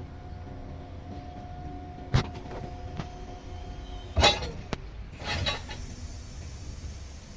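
Electric forklift's hydraulic pump motor whining steadily as the mast lifts the paper-roll clamp. The whine stops about four seconds in with a sharp clunk, the loudest sound here. Another knock follows, then a short rush of noise as the mast starts to come down.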